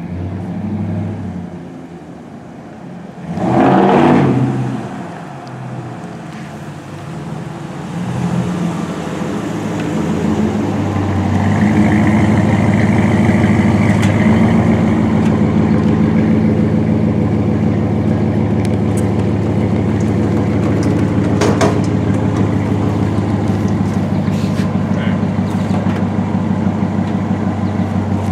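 Pickup truck engine running with a steady low drone that builds up from about eight seconds in and then holds. A loud, brief noise stands out about four seconds in.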